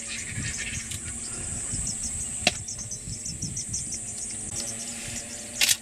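Insects chirring: a steady high-pitched drone made of rapid ticking pulses, over a low rumble. A sharp click comes about two and a half seconds in and a brief louder burst of noise near the end.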